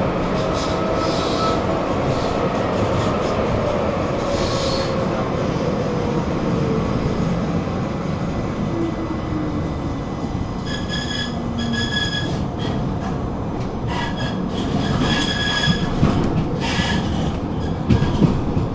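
Tram running on its rails with a steady rumble, its motor whine falling in pitch over the first half as it slows. In the second half the wheels squeal briefly several times, with a few knocks from the track near the end.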